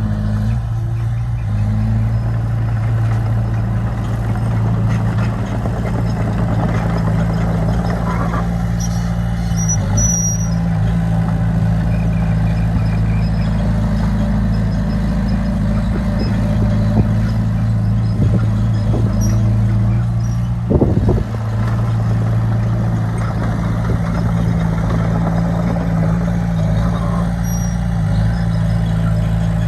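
Heavy diesel engine of earthmoving machinery running steadily at an even pitch, with one brief knock about two-thirds of the way through.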